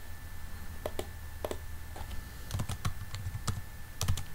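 Typing on a computer keyboard: a short run of separate, unevenly spaced keystrokes, coming closer together in the second half.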